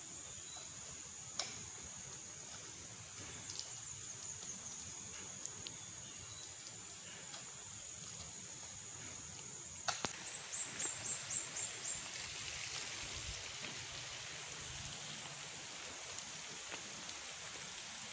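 Quiet outdoor ambience with a steady high insect drone. About ten seconds in the drone cuts off and a quick run of about seven short chirps follows, then only a faint steady hiss.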